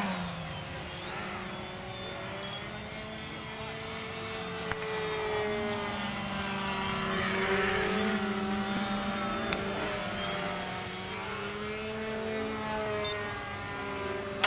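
Engines and propellers of radio-controlled aerobatic model airplanes in flight, a steady drone whose pitch slowly rises and falls with the throttle. From about five seconds in, two engines can be heard at slightly different pitches.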